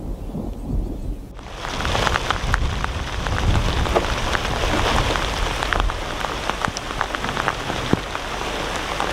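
Thunder rumbling low for about the first second, then an abrupt change to heavy rain, with many separate drops ticking close to the microphone.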